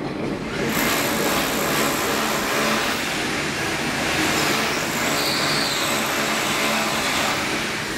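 Automatic wall rendering machine running: a steady mechanical noise from its motor drive.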